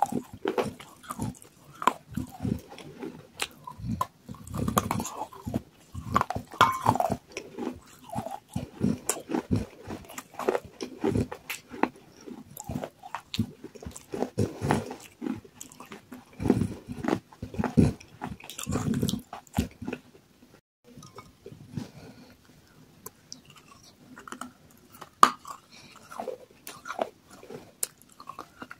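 Close-up crunching and chewing of water-soaked terracotta clay pot pieces: sharp bites followed by gritty, irregular crunches as the clay is ground between the teeth. The chewing eases off for a few seconds about two-thirds of the way through, then resumes.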